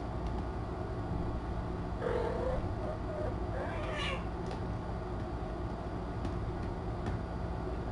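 Cat meowing twice: a short call about two seconds in, then a higher, rising call about four seconds in, over a steady low hum.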